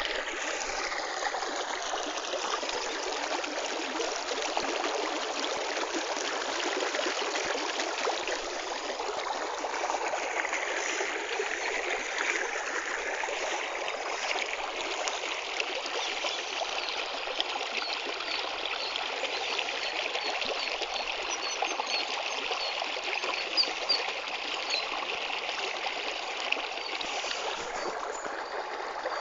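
Running water flowing steadily, a continuous stream-like rush and trickle.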